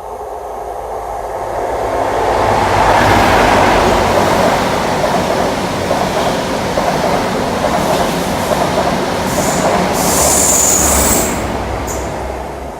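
Train passing close by, its rumble building over the first few seconds, holding, then easing off near the end. A brief high-pitched wheel squeal comes in about two-thirds of the way through.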